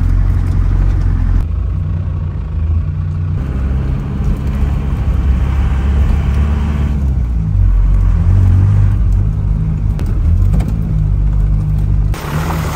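A motor vehicle running: a low, steady rumble with an engine note that shifts up and down in pitch.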